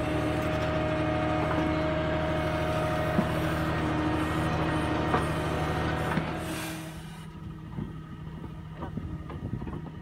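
Tractor-mounted backhoe's diesel engine running steadily as the hydraulic arm digs and swings, with a few sharp metallic clunks. About seven seconds in the sound drops to a quieter, more distant engine with scattered knocks.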